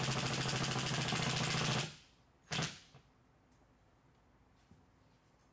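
Cordless drill driving a screw into the wall to fasten a barn-door track bracket, its motor running steadily and then stopping about two seconds in. A short knock follows about half a second later.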